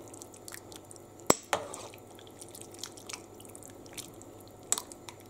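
Metal spoon stirring thick cabbage-and-potato soup in an enamel pot: soft wet squelching with a few sharp clinks of the spoon against the pot, the loudest about a second in and another near the end.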